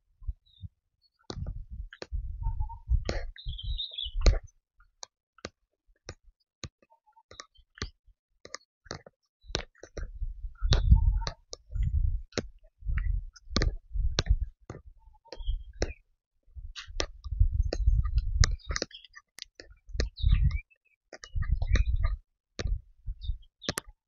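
Footsteps of people walking a grassy forest trail, heard close: low thuds about one a second with many sharp clicks of twigs and leaves, and silent gaps in between.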